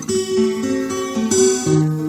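Acoustic guitar music: the instrumental introduction of a song, with held notes and chords changing every half second or so.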